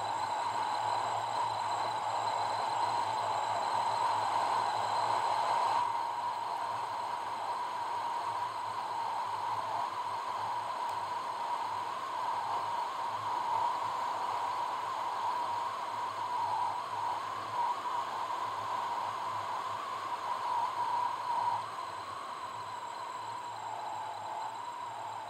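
Steady road and wind noise of a car driving, recorded from the car: an even hiss with a faint high whine, a little quieter near the end.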